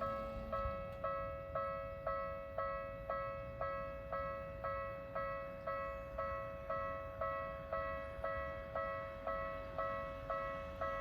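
Japanese railway level-crossing warning bell ringing: a clear two-tone ding struck about twice a second, each strike starting sharply and fading before the next.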